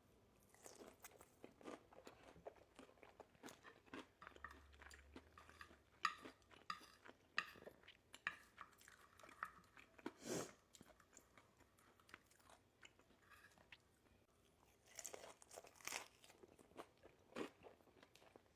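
Close-up eating sounds: a person biting into and chewing crispy fried chicken wings, with irregular quiet crunches and wet mouth clicks and a few louder bites.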